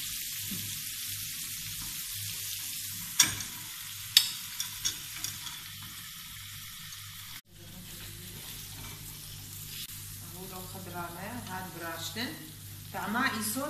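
Onions, green peppers and meat sizzling steadily in a hinged stovetop grill pan over a gas flame. Sharp metal clicks come about three seconds in and again a second later. The sound cuts out for an instant a little past halfway.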